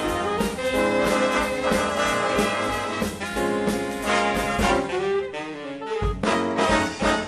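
Live swing big band playing: brass and saxophones over swing drums. Near the end the low end drops away briefly, and the full band comes back in with a loud accent.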